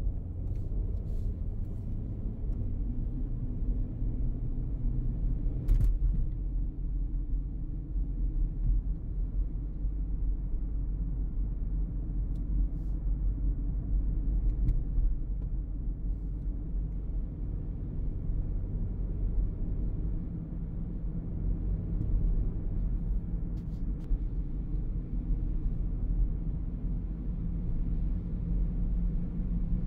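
Steady low rumble of a car on the move, road and engine noise heard from inside the cabin, with a few faint clicks.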